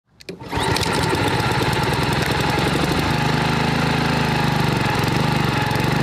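Petrol lawn mower engine running at a steady speed, its note getting a little fuller about halfway through.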